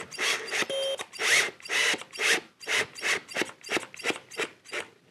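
Cordless drill-driver driving screws through a Telecaster's bridge plate into the wooden body, in about a dozen short bursts that come faster toward the end.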